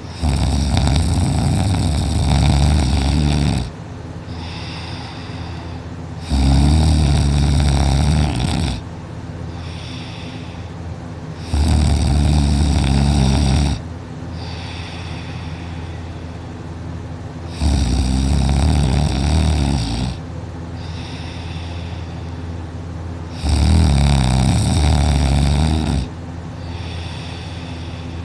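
A person snoring loudly in deep, exhausted sleep: five heavy, rattling snores, each about two to three seconds long, coming every five to six seconds, with quieter breathing between.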